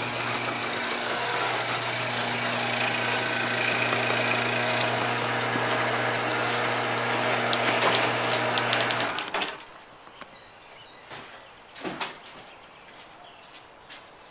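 An engine running at a steady speed, cut off suddenly about nine seconds in; after that only a few scattered knocks and clicks.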